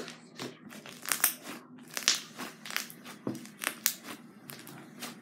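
Pink butter slime squished and folded by hand, giving a run of irregular sharp clicks and pops.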